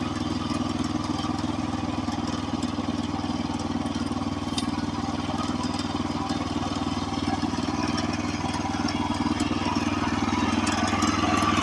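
Woodland Mills portable band sawmill's gas engine running steadily, growing a little louder near the end.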